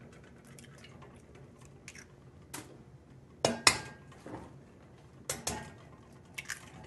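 Eggs being cracked against the rim of a stainless steel mixing bowl: a series of short, sharp cracks and taps a second or so apart, some in quick pairs.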